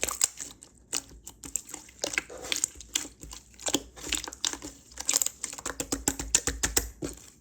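Hands squeezing and poking slime, giving a quick, irregular run of sticky clicks and crackles.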